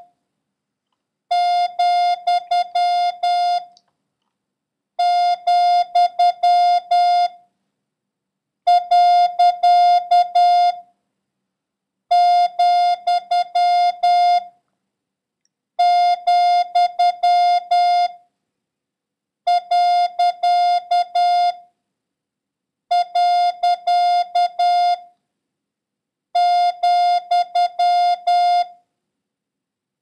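Morse code practice tone, a steady beep of about 700 Hz, keyed out as the comma (dah-dah-di-di-dah-dah) and the period (di-dah-di-dah-di-dah) in random order. Each six-mark character lasts about two seconds, followed by a pause of about a second and a half.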